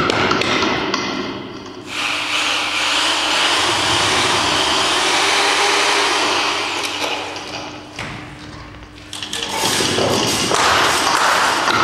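Noise-orchestra performance of improvised sound-makers: a quick patter of taps and knocks, then a dense rushing, grinding noise with a faint steady hum underneath. The noise thins out about eight seconds in and swells back up about ten seconds in.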